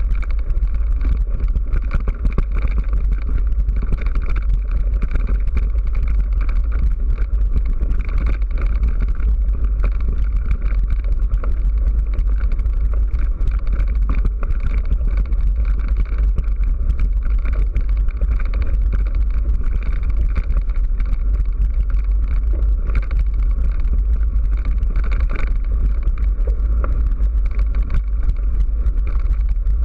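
Ride noise from a camera carried on a mountain bike over a rough dirt trail: a steady, loud low rumble of wind buffeting the microphone and tyres rolling on dirt, with many small rattles from the bumpy ground.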